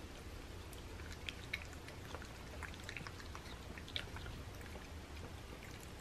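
Cats eating wet canned food in gravy: faint, scattered wet clicks and smacks of licking and chewing, thickest between about one and four and a half seconds in.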